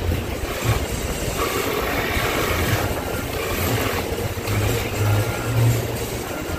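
Cordless drill running a Forstner bit through half-inch plywood, the bit cutting into the wood with a steady mechanical noise that swells and eases as the drilling goes on.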